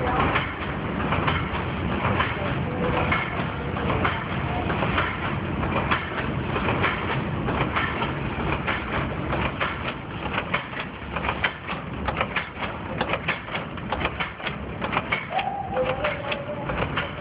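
Automatic dog-chain-making machine running, a steady dense clatter of rapid metallic clicks over a low mechanical rumble as it draws in steel wire and forms links.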